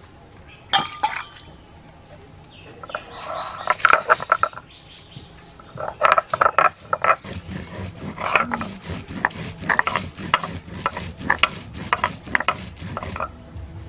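Stone roller crushing dried red chillies on a flat grinding stone (shil-nora): a run of rough crunching, scraping strokes, a few at first, then coming fast and close together in the second half, over a steady high insect chirr.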